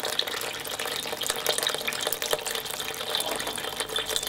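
Cooled wort running in a thin steady stream from a boiler tap through a copper pipe into a plastic fermenting bucket, splashing and crackling onto the froth collecting at the bottom.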